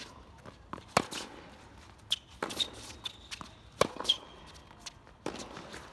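Tennis rally on a hard court: racket strikes on the ball, the two loudest about a second in and just before four seconds, with fainter hits and bounces between. Tennis shoes squeak and scuff on the court surface around two seconds in and again just after four seconds.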